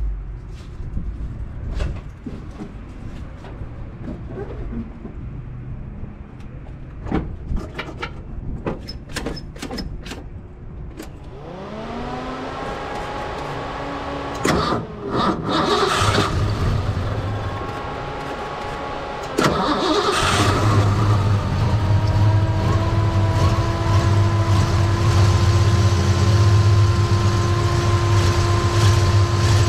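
Turbocharged Ford 302 V8 started after sitting for about a month: scattered clicks and knocks, then the engine cranks and catches with a few sharp bursts and rises in pitch. About twenty seconds in it settles into a loud, steady idle.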